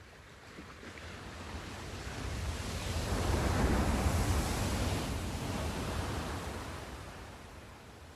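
Sea surf: one wave rolls in and breaks, the wash swelling to a peak about halfway through and then fading as it draws back.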